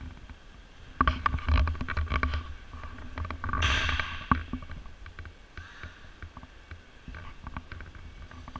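Handling noise on a body-worn GoPro action camera as the wearer moves off and starts walking: low rumbling and a run of clicks and knocks starting about a second in, with a short rushing hiss about three and a half seconds in.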